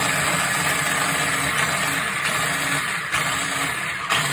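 Electric food chopper's motor running steadily, its blades spinning through chopped celery, with the pitch wavering slightly as the load shifts.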